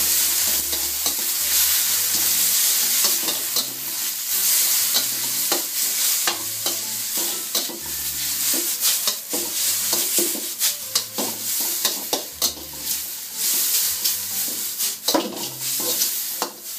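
Rice noodles sizzling in a hot stainless steel wok as a little added water cooks off, with a spatula scraping and clicking against the pan many times as the noodles are stirred and tossed.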